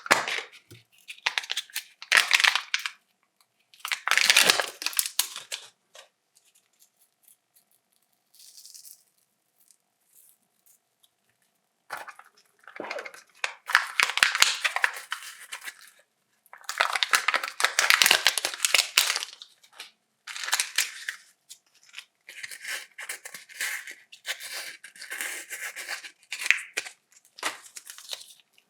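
Kinder chocolate eggs' wrappers crinkling and tearing as they are unwrapped by hand, in bursts of a second or two. There is a pause of several seconds near the middle.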